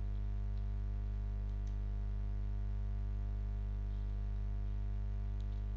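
A steady low electrical hum with several evenly spaced overtones, and a few faint short clicks scattered through it.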